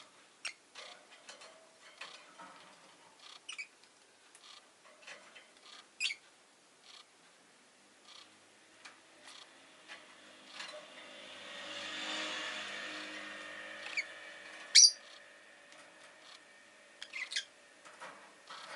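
Rosy-faced lovebird giving a few short, sharp chirps among small clicks and taps. In the middle, a passing car swells up and fades away outside.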